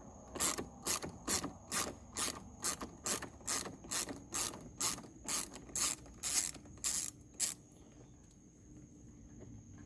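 A ratchet turning a T20 Torx bit backs out a door-panel screw, clicking steadily about twice a second for about seven seconds before stopping.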